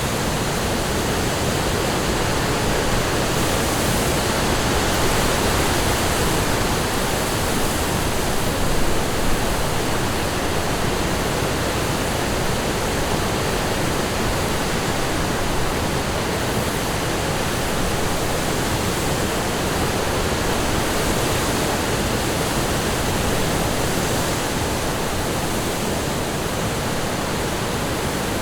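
Storm wind rustling through shoreline reeds: a steady, dense rushing noise with gentle swells, a little stronger about nine seconds in.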